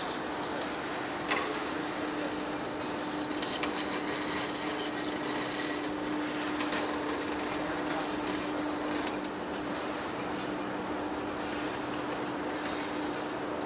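Heavy-duty face lathe running: a steady hum over an even machining noise, with a few sharp clicks.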